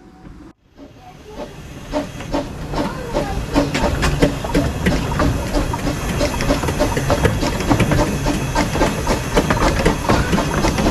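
A small 15-inch gauge steam locomotive running with its carriages, heard from just behind the engine: steam hissing over a dense clatter of wheels on the track. The sound builds over the first few seconds, then holds steady.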